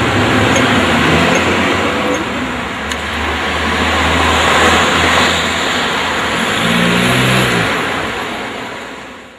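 Motor vehicle and road traffic noise: a steady rush with a low engine hum, swelling about five seconds in and fading out near the end.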